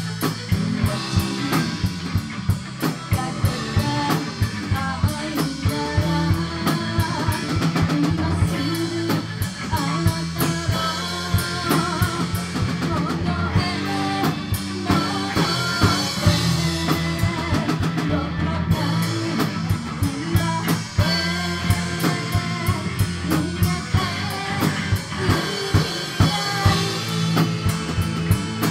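Live band playing amplified: a Pearl drum kit keeping a steady beat under electric bass and electric guitar.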